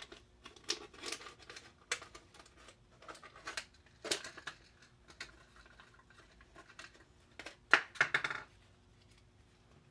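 Thin plastic water bottle being cut apart and handled: a scattered run of crinkles and crackles, loudest about eight seconds in.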